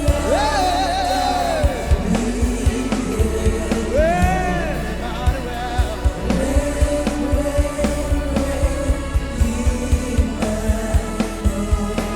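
African gospel worship music: a singer holds long, sliding sung notes over a steady drum beat.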